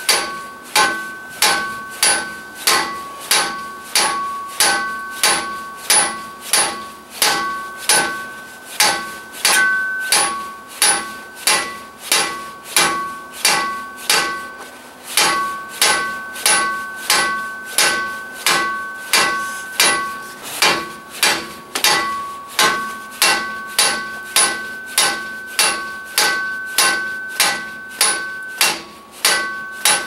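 Steady hammer blows, about two a second, on the steel rear wheel hub of a 2017 Subaru Impreza to knock it loose for removal. Each blow leaves a metallic ring, with a couple of brief pauses in the rhythm.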